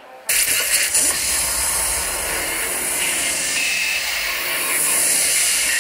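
A loud, steady hissing noise that starts abruptly a moment in and holds without a break.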